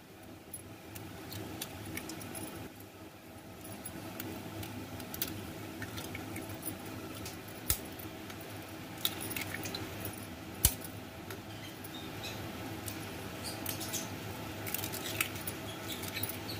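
Hen's eggs being cracked with a steel spoon over a stainless steel bowl: scattered light taps and cracks of shell, with sharper clicks of spoon on metal about a third and two thirds of the way in. A steady low hum runs underneath.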